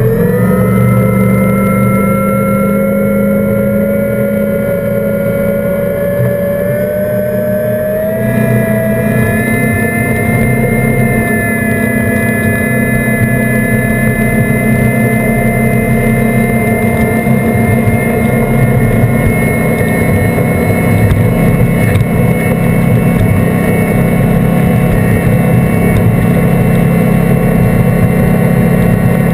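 Seven Marine 557 supercharged V8 outboard running at high speed, with rushing water and spray. Its pitch climbs slowly, steps up about eight seconds in, then holds steady.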